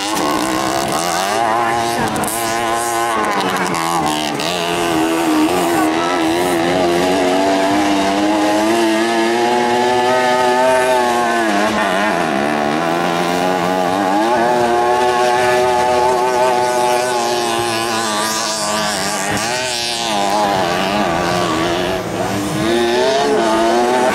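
Several 50cc two-stroke racing mopeds revving hard on a dirt track, their engine pitch repeatedly rising and falling, with deep dips about halfway through and again near the end.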